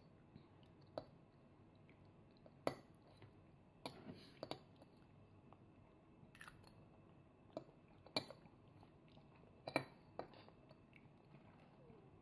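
A toddler eating with a metal spoon and fork: scattered short clinks and taps of cutlery against the dishes and utensils, with soft chewing, about one click a second.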